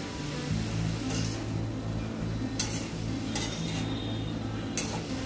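Ash gourd strips being stirred with a spatula in oil in a kadai, sizzling, with a few sharp scrapes and knocks of the spatula against the pan. A steady low hum runs underneath.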